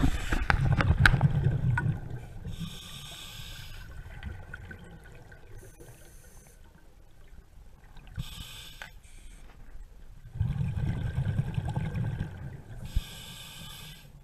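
Scuba diver breathing underwater through a regulator: loud rumbling bursts of exhaled bubbles, twice, alternating with softer hissing inhalations.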